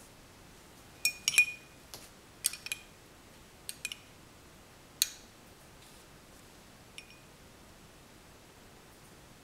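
Metal spoon and glass bowls clinking as they are handled and set down on a table: a string of sharp, briefly ringing clinks over the first four seconds, one loud clink at about five seconds and a faint one at about seven.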